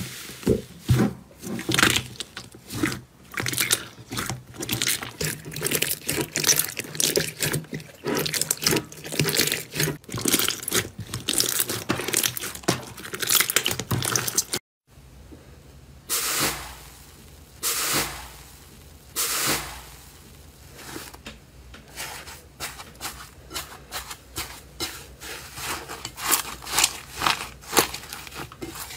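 Slime being pressed, squeezed and stretched by hand: a dense run of crackles, pops and squelches as air pockets burst. It cuts to silence for an instant about halfway, after which the crackling comes in sparser bursts and grows denser again near the end.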